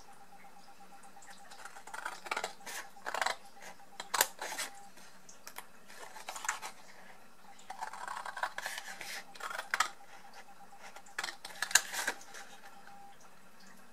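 Scissors cutting slits into cardstock: crisp snips coming in several short runs, with brief pauses between them.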